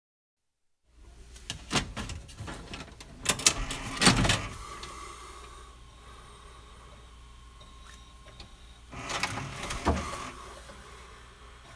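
VHS video cassette recorder's tape mechanism: clicks and clunks with motor whirring as a cassette is loaded, a steady quieter whir, then a second burst of clunks and whirring near the end as the machine goes into play.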